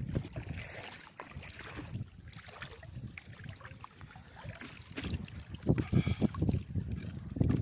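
Water sloshing and splashing as a fishing net and a mesh basket are worked in shallow water, with irregular knocks and splashes that grow louder over the last couple of seconds.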